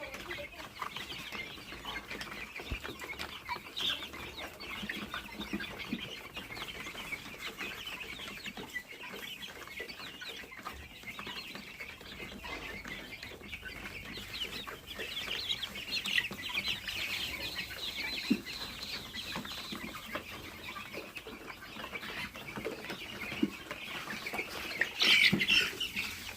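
Many chicks peeping over and over in a dense, continuous chatter of short high calls, with a louder burst of peeps near the end.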